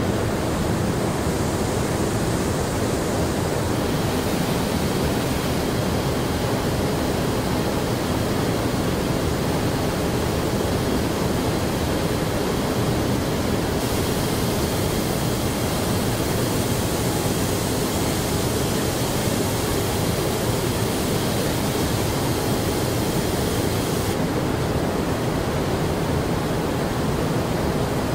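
Steady machinery noise of a car assembly plant: a dense, even rush with no distinct strokes, its upper hiss shifting a few times.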